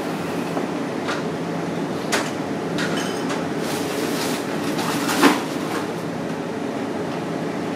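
Steady ventilation hum in a kitchen, with a few light clicks and clatters over it; the loudest comes a little after halfway.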